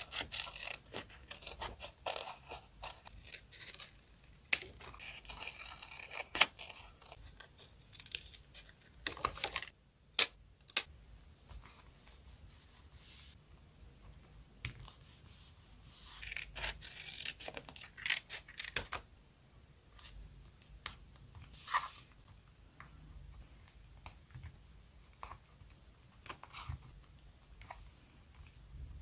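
Paper sticker handling up close: a sheet of paper stickers rustling and crinkling as stickers are peeled off and pressed onto a paper journal page with metal tweezers. Scattered sharp clicks and taps throughout.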